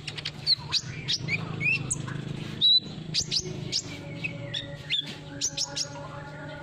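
Sunbird (kolibri ninja) calling in a rapid run of high, thin chirps and quick up-and-down whistled notes, the loudest about two and a half seconds in. A steady low hum runs underneath.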